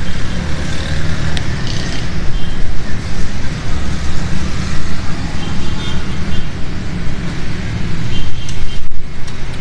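Road traffic noise, a loud, uneven rumble.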